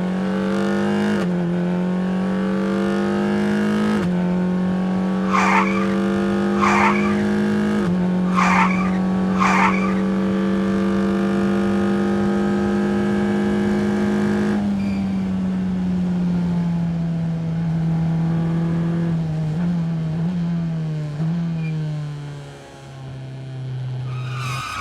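A car engine running at high revs, its pitch dipping briefly at gear changes, then easing down after the middle. Four short squeals come between about five and ten seconds in.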